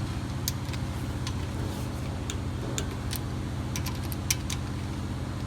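Irregular sharp metal clicks of a wrench tightening the rear brake caliper and brake line bolts, a dozen or so spread unevenly, over a steady low hum.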